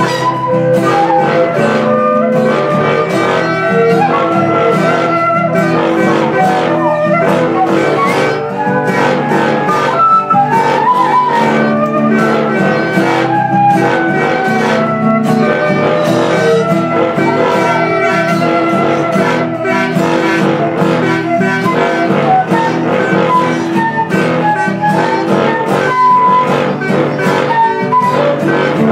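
Improvised ensemble of wind instruments, including quena, bansuri, flutes and saxophone-like horns, with a long PVC tube blown like a horn. They play loose overlapping melodies over sustained low notes, above a strummed guitar keeping a steady rhythm.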